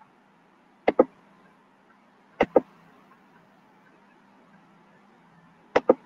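Three computer mouse double-clicks, each a pair of sharp clicks a fraction of a second apart: about a second in, about two and a half seconds in, and near the end. Between them is a faint steady hiss.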